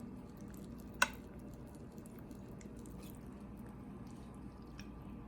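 Faint wet, sticky sounds of a piece of sauced barbecue chicken being pulled off and eaten, with one sharp click about a second in, over a steady low hum.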